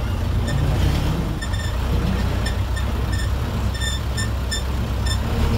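A 1990s Mitsubishi bus engine running steadily with a deep rumble, heard from inside the bus near the driver, with short high-pitched clinks now and then.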